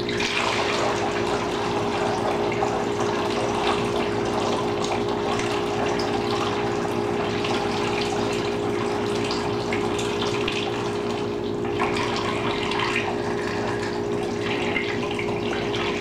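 Water poured in a steady stream from a ZeroWater filter pitcher through a funnel into a plastic 2-liter bottle, starting right at the beginning. A steady hum sits underneath.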